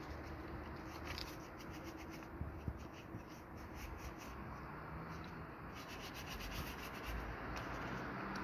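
A wallet being scrubbed by hand with quick, repeated rubbing strokes, in a run about a second in and another near the end, over a faint low hum of traffic.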